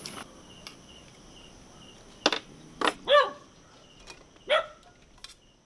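Insects chirping in a steady, evenly repeating pattern, with a few sharp clicks and two short calls that rise and fall in pitch.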